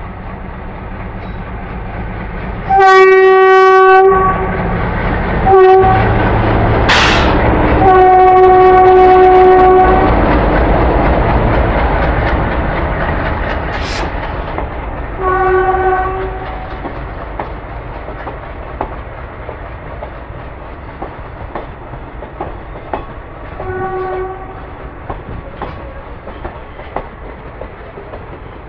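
Indian Railways WDG3A diesel locomotive passing at speed, sounding its horn five times: two longer blasts in the first ten seconds, a short one between them, and two short blasts later on. The engine's heavy rumble swells as the locomotive goes by, then the express coaches roll past with a steady clickety-clack of wheels over rail joints.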